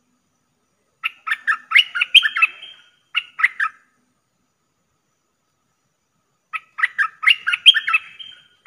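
Caged decoy merbah lekir bulbul calling: two phrases of rapid, sharp chattering notes, the first about a second in and the second near the end, with a pause between.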